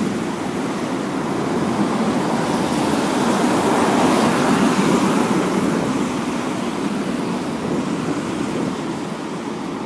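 City street traffic: cars driving past on wet asphalt, a steady rush of tyre and engine noise that swells as a car passes close about four seconds in, then eases off.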